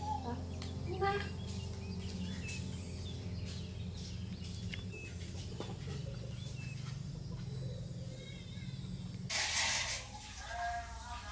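Small birds chirping now and then over a steady low hum. About nine seconds in there is a short loud rushing noise, and near the end an animal bleats.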